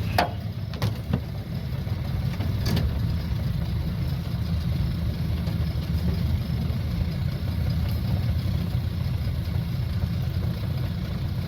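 Small boat's outboard motor idling steadily, with a few short knocks in the first three seconds.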